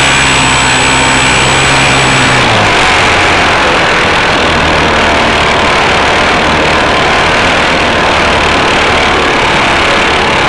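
Onboard sound of an Art-Tech Coota RC model plane in flight: the electric motor and propeller whine, falling slightly in pitch, cuts out about two and a half seconds in. A steady rush of wind over the airframe and microphone takes over as the plane glides down.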